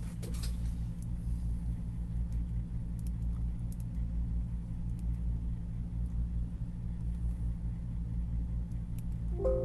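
A steady low hum throughout. Near the end, a few held musical notes start from the laptop's speakers, a sound test showing the speakers work after the headphone jack repair.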